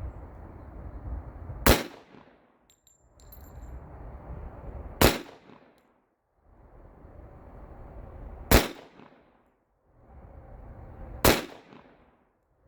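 Four single pistol shots about three seconds apart, each a sharp crack with a short ring-out. They come from a 1911 in .45 ACP firing powder-coated cast-bullet handloads, and the slide cycles each round without a hitch.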